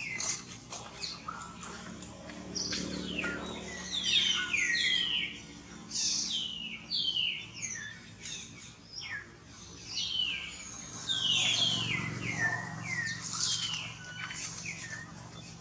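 Baby monkey crying: shrill, high squeals, each falling in pitch, repeated many times in quick succession.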